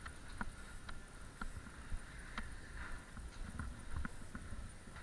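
Footsteps, about two a second, with a few quicker knocks clustered near the end.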